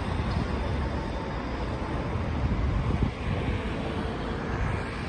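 City road traffic: a steady wash of cars and vans passing on a wide street, with wind rumbling on the microphone.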